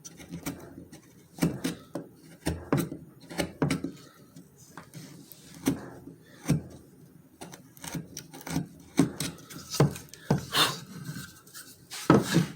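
Hardwood pieces knocking and rubbing together as they are handled, with irregular clicks and short scrapes.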